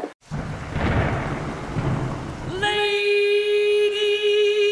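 Thunderstorm sound effect: a low rumble of thunder for about two seconds, then about two and a half seconds in a long held musical note comes in and sustains with a slight waver.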